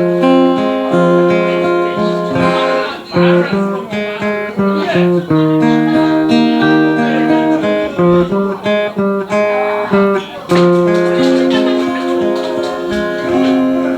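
Acoustic guitar music: an instrumental introduction of chords changing every second or so, with notes held between changes.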